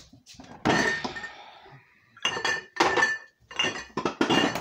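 Dishes and utensils clinking and clattering as they are handled: a loud clatter about two-thirds of a second in, then four more clinks, several with a bright ringing tone after them.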